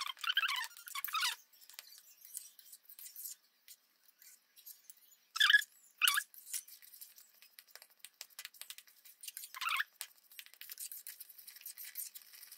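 A spatula scraping and squeaking against a stainless steel pan as it stirs thickening strawberry jam. There is a run of squeaks at the start, two short sharp squeaks about five and a half seconds in, and another near ten seconds, over faint ticking from the bubbling jam.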